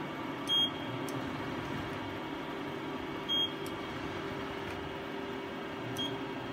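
Steady hum of a Hyundai KIA SKT 21 LMS CNC lathe running while its sub spindle traverses toward the main spindle, with two short high beeps about three seconds apart.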